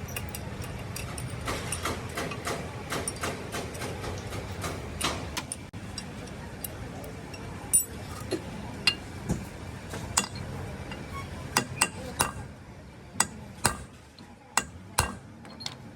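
Metal tools and parts clinking and tapping in a turbocharger repair: a string of irregular sharp knocks, farther apart in the second half, over a low steady hum.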